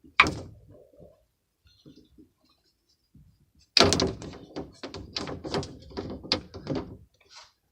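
Metal knocks and clicks from a PEX crimping tool being set on a copper crimp ring and squeezed to crimp the second side of a coupling: one sharp knock at the start, then a quick run of about a dozen clicks and clanks in the second half.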